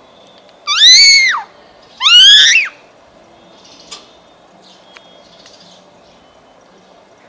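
Indian ringneck parrot giving two loud, clear calls about a second apart, each rising and then falling in pitch. A couple of faint clicks follow.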